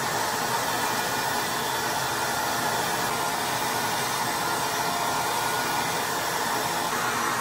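Hand-held hair dryer blowing steadily with a constant rushing whoosh.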